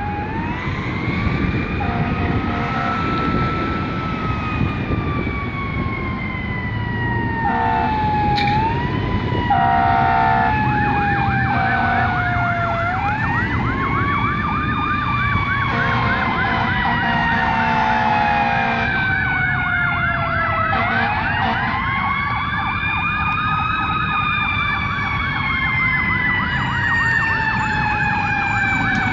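Fire truck sirens on a Pierce Velocity ladder truck responding: one siren wails slowly up and down, another switches into a fast warbling yelp for long stretches, and the air horn blasts several times over the truck's engine rumble.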